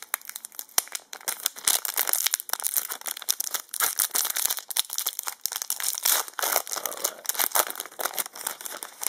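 Foil trading-card booster pack crinkling and being torn open by hand, with a continuous irregular crackle.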